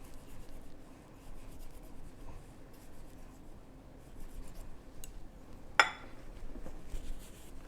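Faint rubbing and scraping as papaya-salad ingredients are handled, with scattered light ticks and one sharp knock about six seconds in.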